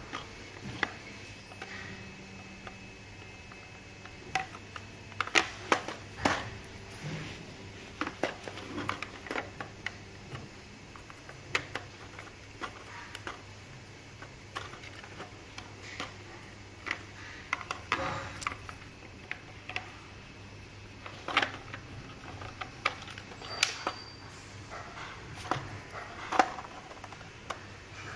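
Irregular clicks, taps and knocks of vacuum cleaner parts being handled and fitted together, over a faint steady low hum.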